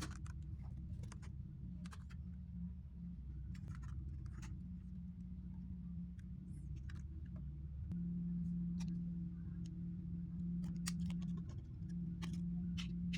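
Scattered small clicks and taps of hands working on a ThinkPad T480 laptop during a RAM upgrade, over a steady low hum that gets a little louder about eight seconds in.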